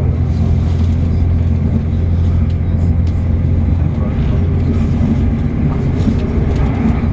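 A Class 185 diesel multiple unit under way, heard from inside the carriage: the underfloor Cummins diesel engine's steady low drone, with the rumble of the wheels on the rails.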